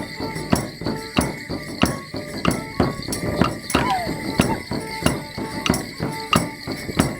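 Border Morris dance: wooden sticks clashing in a steady rhythm of sharp clacks, over a band playing the dance tune.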